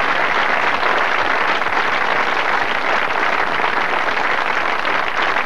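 Studio audience applauding, a steady dense clapping from many people.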